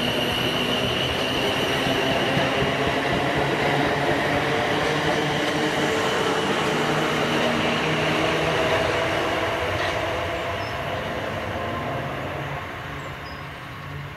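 South Western Railway Class 450 Desiro electric multiple unit running past at speed: rumbling wheels on the rails with a steady high whine, fading from about ten seconds in as the train draws away.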